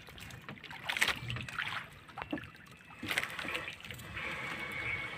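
Wet fishing net hauled hand over hand into a small boat, with water dripping and splashing off it and scattered knocks against the hull.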